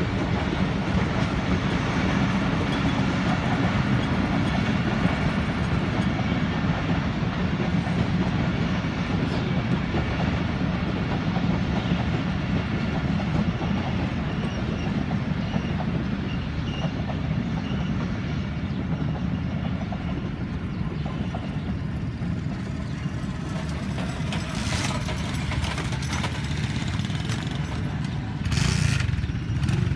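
13up Awam Express passenger train rolling past on the track, a steady sound of its coaches on the rails, with a couple of short louder noises near the end.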